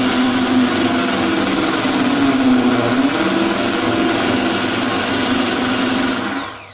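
Ryobi electric drill with a spade bit running continuously as it bores a hole into a wooden board. Its motor pitch wavers slightly as it works, then winds down near the end when the trigger is released.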